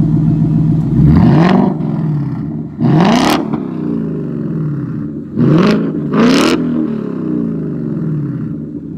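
A 2020 Ford Mustang GT's 5.0 Coyote V8 through a Pypes exhaust, free-revved while parked: four quick throttle blips, the last two close together, each climbing and falling back to a steady idle.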